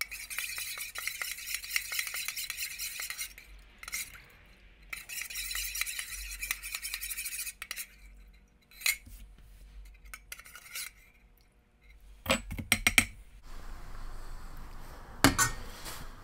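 A spoon stirring grape drink mix in a metal canteen cup, scraping and clinking quickly against the cup in two spells of a few seconds each. Later come a few separate clinks and knocks of metal cup and cutlery being set down.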